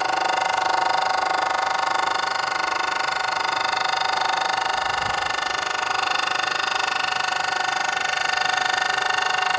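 Milling machine spindle running with a fly cutter milling across the top of a wooden board, a steady whine of several pitches held at an even level.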